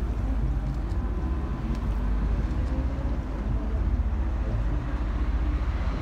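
Steady low rumble of a river cruise boat's engine, heard from on board the moving boat.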